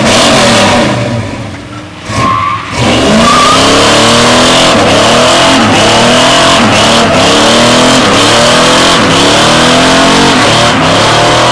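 Pickup truck doing a burnout: the engine revs hard, its pitch rising and falling over and over as the throttle is worked, over the squeal of the spinning rear tyre. It starts in earnest about three seconds in after a brief lull.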